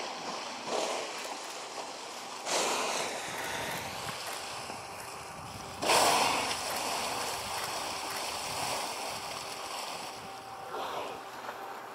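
Killer whales surfacing and exhaling: sudden whooshing blows, about four of them, the loudest about six seconds in, over a steady wash of moving water.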